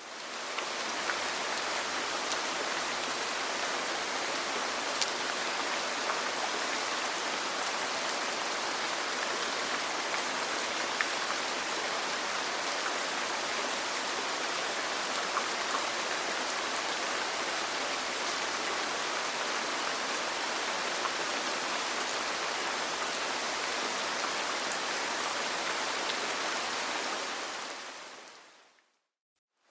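Steady rain on a roof, a continuous even patter with occasional small ticks; it fades in at the start and fades out to silence near the end.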